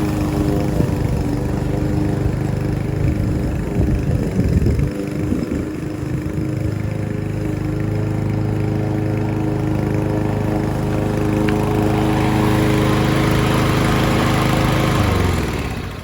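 Yardworks 174cc walk-behind lawn mower engine running while mowing grass, uneven for a couple of seconds about four seconds in, then steady. Near the end the engine winds down in pitch and stops.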